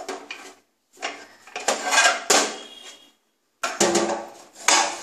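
Steel tongs clinking and scraping against a hot steel bowl as it is lifted out of a pressure cooker and set down on a steel stovetop: a run of metal clatters with several sharp knocks in the second half.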